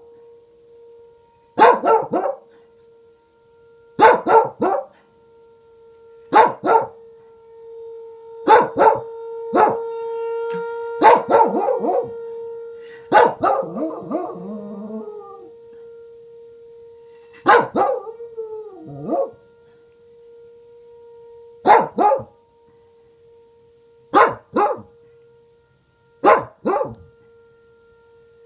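Pembroke Welsh Corgi barking in quick bursts of two or three every couple of seconds, breaking into wavering howls twice in the middle. Behind it a tornado siren holds one steady tone that swells in the middle and then fades.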